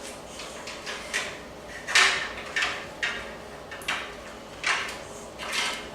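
Front panel cables being handled and drawn through a computer case, rubbing against the case: a series of short scrapes and rustles, roughly one every half second to second.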